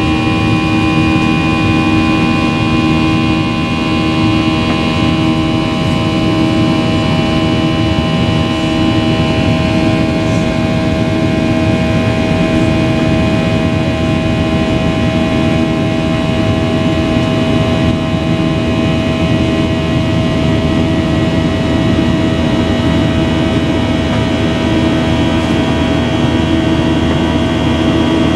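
Boeing 737-800's CFM56-7B turbofan engines and airflow heard from inside the cabin in the climb after takeoff: a steady rush of noise with several steady whining tones. A few of the higher tones drop away about ten seconds in.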